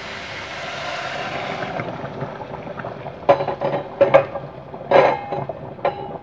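Boiling water pours from a steel saucepan onto rice fried in a hot pot, hissing steadily for about two seconds. It is followed by several sharp metallic clinks and knocks of pans.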